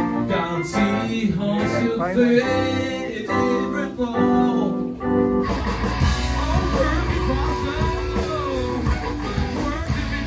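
Live band music with electric guitar and a singing voice. About halfway through the sound changes abruptly to a fuller full-band passage.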